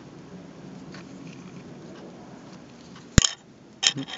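Light handling of small plastic and metal Beyblade parts, then a sharp clack about three seconds in and a couple of smaller clinks just before the end, as parts are picked up and set down.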